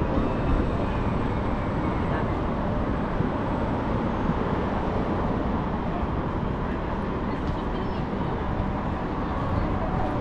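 Steady city traffic noise, a continuous rumble with a murmur of voices in it.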